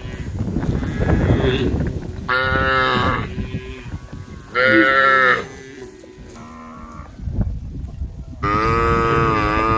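Cows mooing on a road: four moos, the third weaker and the last a long one. A low rumbling noise in the first two seconds.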